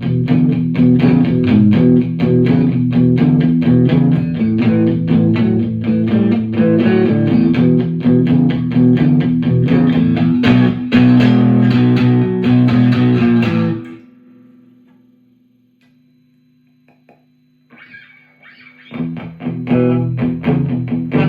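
Harley Benton JA-60CC electric guitar played in a run of quickly picked notes. About 14 seconds in the playing stops and one note rings on and fades almost to silence, then picking starts again near the end.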